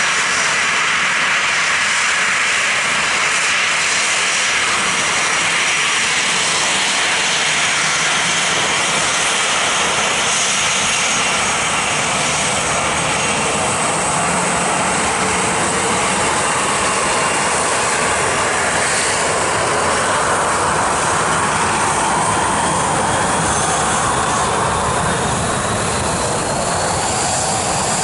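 Boeing 737-900ER airliner's twin CFM56-7B turbofan engines at taxi power as the jet taxis past: a loud, steady jet whine and rush. A thin high whine slowly shifts in pitch near the end.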